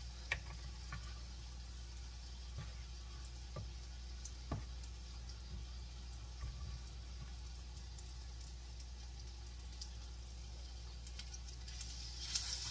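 Hot vegetable oil sizzling steadily around a beer-battered hearts-of-palm piece frying in a cast-iron skillet, with a few light clicks from a fork in the batter bowl. Near the end the sizzle grows louder as a second battered piece goes into the oil.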